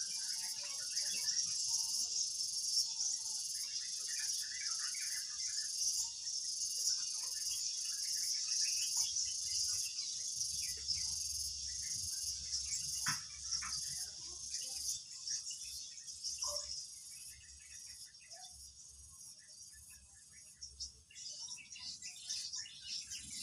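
Steady high-pitched insect chorus, such as crickets, with an even pulsing beat. It fades a little a few seconds before the end, then picks up again.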